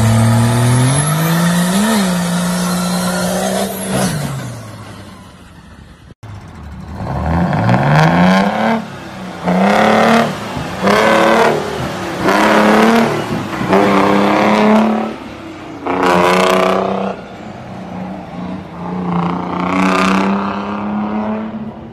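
A truck engine revs up, peaks about two seconds in, then winds down and fades. Then an old diesel dump truck with a vertical exhaust stack accelerates hard through about five gears, its pitch climbing and dropping at each upshift, before settling into a steady pull.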